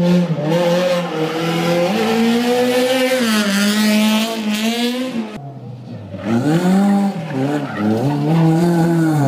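Citroën rally car engines revving hard through a tight hairpin, the pitch climbing and dropping with throttle and gear changes. The sound cuts off abruptly about five seconds in, and a second Citroën rally car's engine revs up soon after.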